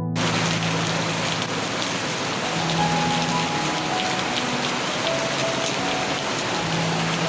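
Steady rain falling, starting abruptly, with faint soft music notes beneath it.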